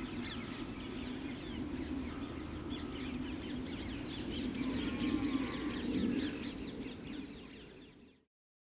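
Many wild birds calling at once in a dawn chorus of quick, short chirps, over a steady low rumble. The sound fades out to silence near the end.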